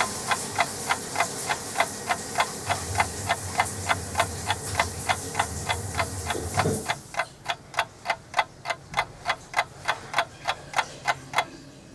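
Clock-like ticking, quick and even at about three ticks a second, with a steady hiss under it that stops about seven seconds in; the ticking carries on alone after that.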